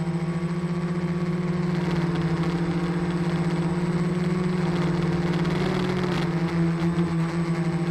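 Multirotor drone's electric motors and propellers humming steadily, heard through the camera carried aloft on it. The pitch wavers briefly about six seconds in.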